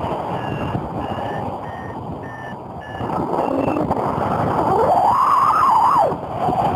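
Paragliding variometer beeping in short, evenly spaced pips about two a second over wind rushing on the microphone in flight. About five seconds in, a whistling tone glides up, holds, and drops away.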